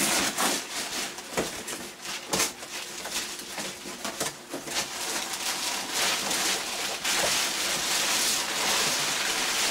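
A taped cardboard box being ripped open with sharp tearing and crackling strokes, then crumpled packing paper being pulled out and rustled in a dense, steady crinkle from about halfway through.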